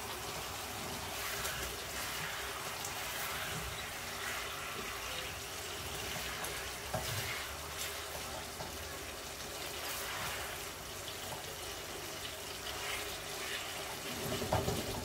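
Chicken pieces simmering in oil and tikka masala sauce in a frying pan, a steady soft sizzle and bubbling from the liquid in the pan, with a silicone spatula stirring and scraping through it and a few light knocks near the end.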